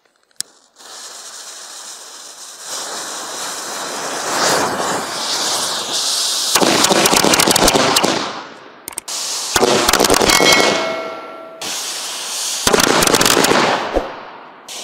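A click as the fuse is lit, then the bundled fuse hisses and the small firework rockets of a miniature metal Katyusha-style launcher fire off. The launches come as a dense, rapid crackle and rush in three spells with short breaks between.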